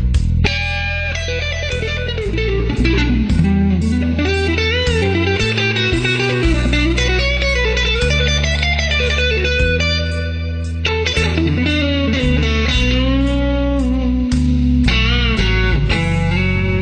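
Electric guitar music with a bass line underneath, the lead line bending and sliding in pitch.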